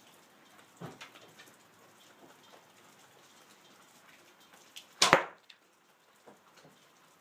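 An arrow from a recurve bow strikes a foam block target with one loud, sharp smack about five seconds in. A fainter knock comes a little under a second in.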